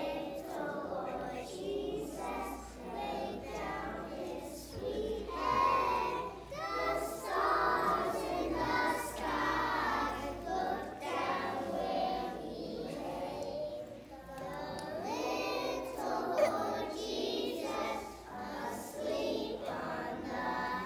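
Group of young children singing a song together as a small choir.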